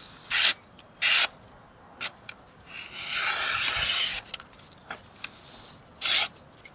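Lionsteel SR-1 folding knife's D2 steel blade slicing printer paper with a hissing sound: two short cuts in the first second or so, a longer drawn cut around three to four seconds, and another short cut near the end. After the edge has been through the wooden block twice, the hiss sounds a little louder to the knife's owner.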